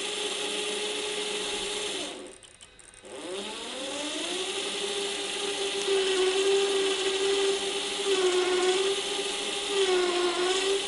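Electric motor and geared 8x8 drivetrain of a ScaleART MAN TGS RC truck whining as it spins all wheels with every diff lock locked. It stops briefly about two and a half seconds in and winds back up in pitch. Its pitch sags twice near the end as the spinning wheels are gripped by hand and load the drivetrain.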